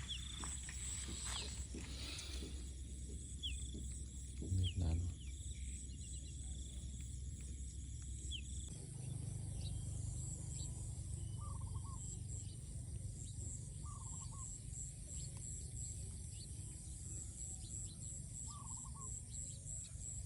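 Outdoor rural ambience: a steady, pulsing high insect trill over a low rumble, with a few short animal calls, three of them in the second half. A dull knock sounds about four and a half seconds in.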